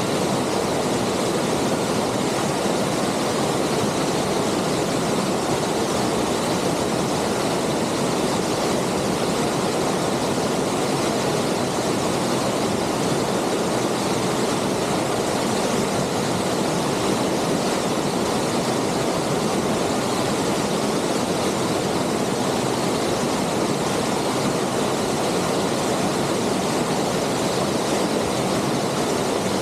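A waterfall pouring, a steady, even rush of falling water.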